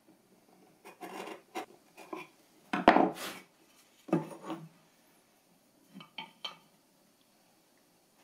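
Bevel-edge chisel scraping waste from the bottom of a bridle-joint slot in wood, a few short scrapes, with a sharp knock about three seconds in and lighter clatters of steel tools handled on the wooden bench. A few faint clicks follow around the middle.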